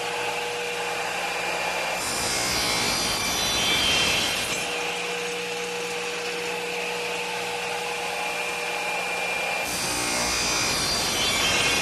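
Electric saw running steadily with a motor whine, then cutting through wooden boards twice: the first cut about two seconds in, the second near the end. Between the cuts the blade spins freely.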